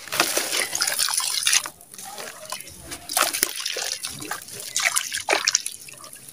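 Wet red sand-cement squeezed and crumbled by hand in a tub of muddy water: gritty squelching and crumbling, with water dripping and splashing. It comes in several bursts, the longest in the first second and a half, with shorter ones about three and five seconds in.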